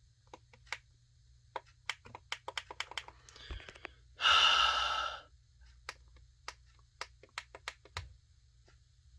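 Small plastic buttons on a digital alarm clock clicking many times as they are pressed, with a long breathy sigh about four seconds in.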